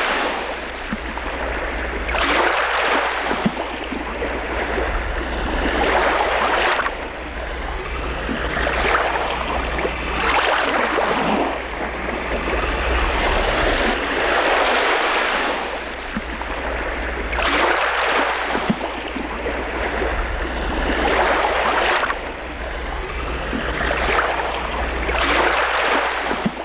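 Sea surf washing onto a shore, a fresh surge of waves every two to three seconds over a low rumble.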